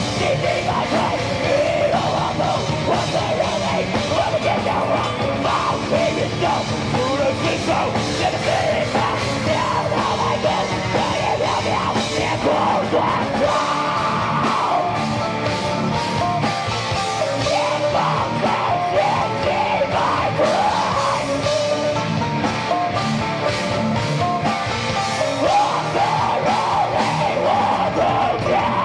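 Heavy metal band playing live: drum kit and distorted guitars, with a winding melodic lead line over them.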